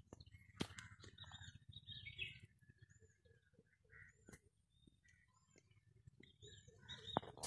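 Birds chirping faintly: one bird repeats a short, high, arched call about every second and a half, with other scattered chirps. A few sharp clicks.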